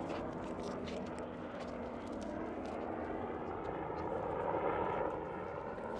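Airplane flying overhead, a steady drone that swells to its loudest about four to five seconds in.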